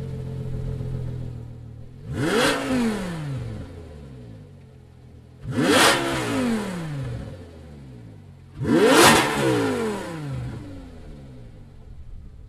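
2005 Infiniti G35's 3.5-litre V6, fitted with a Motordyne Shockwave exhaust and ART pipes, idling and then blipped three times: each rev climbs fast, peaks loudly and drops back to idle. The engine is free-revving with no load.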